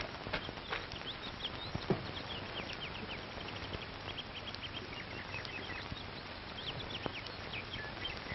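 Birds chirping: many short, scattered chirps over a steady hiss. A few light knocks come in the first two seconds.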